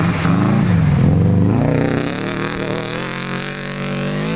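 Subaru Impreza rally car's flat-four engine passing close: the revs dip and pick up again twice through the corner, loudest about a second in, then climb steadily as it accelerates away.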